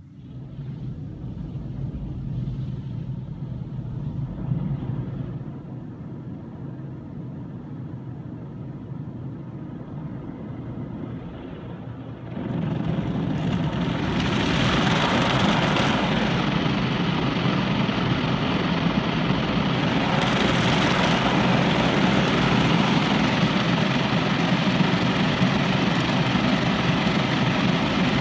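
Automatic car wash heard from inside the car: at first a steady low rumble, then about twelve seconds in a sudden, much louder rush and scrub as the rotating wash brushes and water spray sweep over the windshield and roof.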